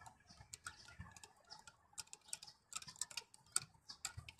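Faint, irregular light metal clicks from a hand driver tightening a small bolt on an engine's timing cover.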